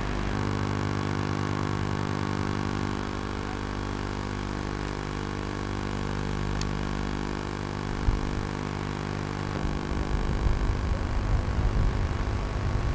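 Heavy diesel engine of a hydraulic excavator running steadily. About eight seconds in there is a short thump, and from about ten seconds a rougher, louder low rumble takes over.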